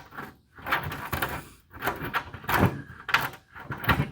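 Irregular knocks and scrapes of parts being handled, several short clatters spread across a few seconds.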